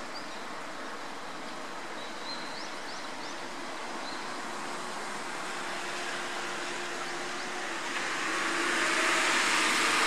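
Steady rushing noise of distant road traffic, swelling louder about eight seconds in as a vehicle passes closer. A few faint, short, high chirps come through early on.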